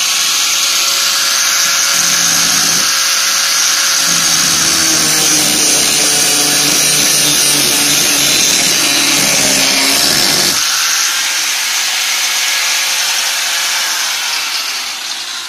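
Handheld angle grinder running at speed, its disc grinding the cut edge of a plastic drum hull to smooth and level it. The grinding drags heavier from about two to ten seconds in, and the motor winds down near the end.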